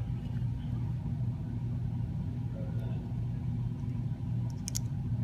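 Steady low background hum, with a quick cluster of faint small clicks near the end as tiny phone parts are handled and seated.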